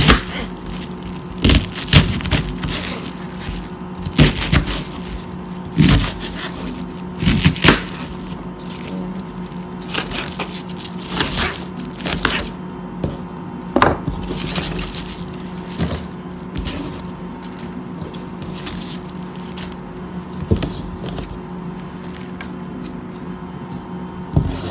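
Kitchen knife cutting cabbage on a plastic cutting board: sharp, irregular knocks, loudest and most frequent in the first several seconds, thinning out after about halfway, over a steady low hum.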